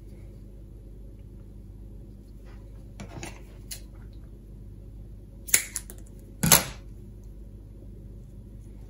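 Scissors cutting and being set down on a wooden workbench: a soft scrape about three seconds in, sharp clicks around five and a half seconds in, and a louder knock a second later, over a steady low hum.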